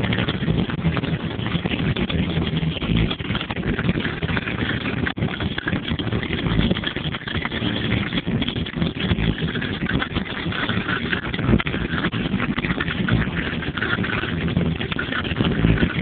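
GMC Yukon's V8 engine running steadily at idle, heard from inside the cabin.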